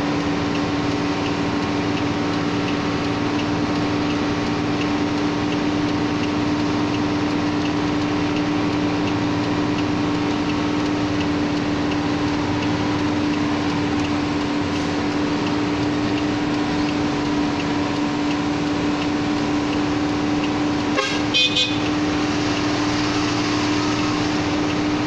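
Truck's diesel engine droning steadily from inside the cab, pulling uphill in low gear. About three quarters of the way through a horn gives two short toots.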